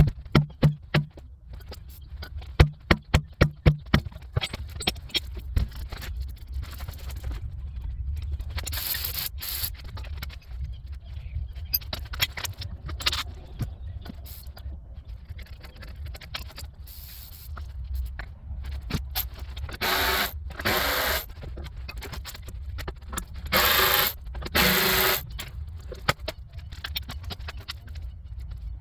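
Clicks and clatter of tools and metal brake parts being handled, over a steady low rumble. There is a quick run of knocks early on, and three noisy bursts of about a second each, one near the start of the middle and two close together later.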